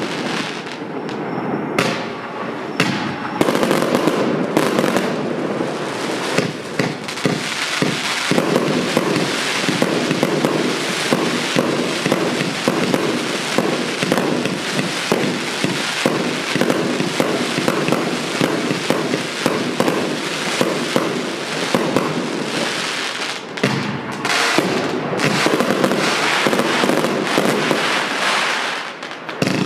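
Vivid Pyrotechnics El Loco 268-shot compound firework cake firing 25 mm and 30 mm shells in a dense, unbroken barrage of launches and bursts. It eases off about a second before the end.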